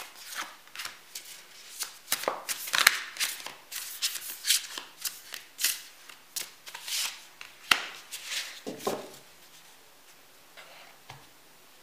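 Tarot cards being handled and laid out on a table: a quick run of light papery slaps, flicks and slides. They stop about nine seconds in.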